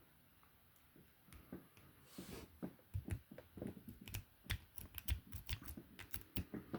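Faint, irregular metallic clicks and scrapes of a half-diamond lock pick and tension wrench working in the keyway of a small 20 mm padlock, a few clicks a second, starting after about a second of quiet. The pick barely fits the tiny keyway.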